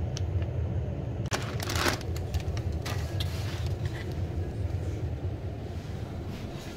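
Plastic wrapping of a vacuum-packed udon noodle block crinkling and tearing open, loudest about two seconds in, with a smaller crackle a second later, over a steady low rumble.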